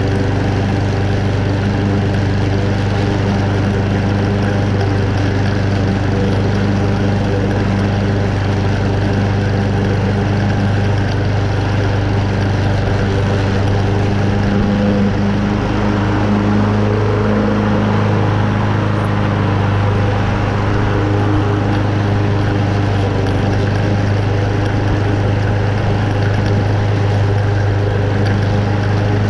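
Single-cylinder Honda engine of a Toro Super Recycler walk-behind mower running steadily under load while its blade cuts moderately wet, tall grass. The engine note wavers briefly around the middle.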